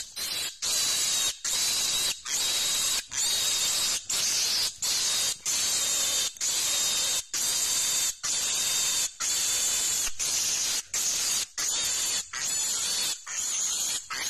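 A wild boar piglet screaming over and over in harsh, high-pitched squeals, about one and a half a second with a short breath between each: the distress screams of a piglet caught by a bear.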